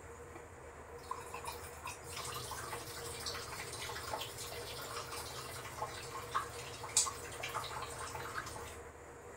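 Thick milk-and-rice khir bubbling in a pan, its bursting bubbles making irregular small pops and blips. The popping starts about a second in and stops near the end.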